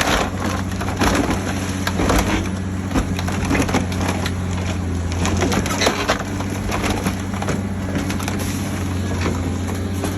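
A heavy diesel machine runs steadily under repeated irregular crunching, creaking and clanking of scrap car metal being crushed and torn.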